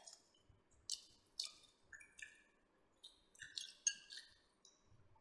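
Faint close-up chewing and lip-smacking of people eating roasted pork: scattered short, wet clicks and smacks, a little busier near the end.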